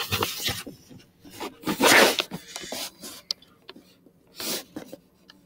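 Rubbing and rustling of a handheld phone being moved about, its microphone brushed by hand or clothing, in a few noisy bursts, the loudest about two seconds in, with small clicks between.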